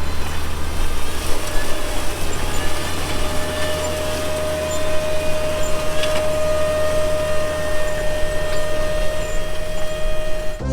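Tractor engine running at a steady speed with a low hum, and a steady whine joining about four and a half seconds in.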